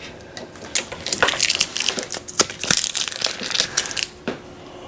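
Packing material crinkling and crumpling as it is handled, a dense run of quick crackles that stops about a second before the end.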